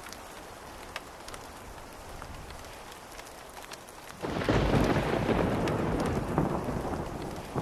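Steady rain with scattered drops ticking, then a sudden loud thunderclap about four seconds in that rumbles on and slowly fades.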